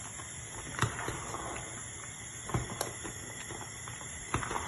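A metal spoon stirring thick ogbono soup in a stainless-steel pot, with a few scattered clinks of the spoon against the pot over a steady background hiss.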